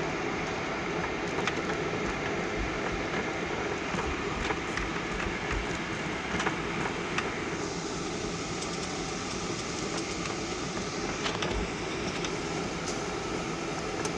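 Jet airliner cabin noise from a Boeing 737-900: its CFM56 engines running and the aircraft rumbling along the ground, with occasional low thumps. About halfway through, a hiss grows stronger over the rumble.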